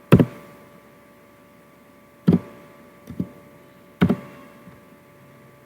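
Four separate sharp clicks from computer input while an IP address is being entered, spaced one to two seconds apart, over a steady faint electrical hum.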